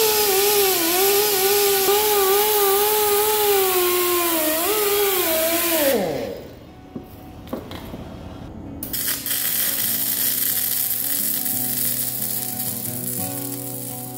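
Angle grinder grinding the steel joint between a hydraulic cylinder's head flange and barrel, its whine wavering under load, then winding down about six seconds in. From about nine seconds a metal-core welding arc hisses steadily, with background music coming in.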